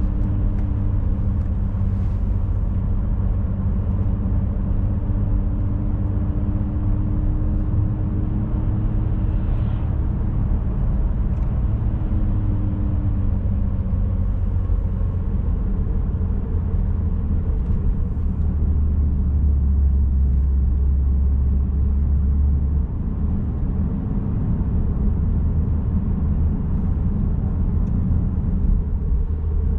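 A car driving: a steady low rumble of engine and road noise. A hum from the engine fades out about halfway through, and the low rumble grows stronger for a few seconds soon after.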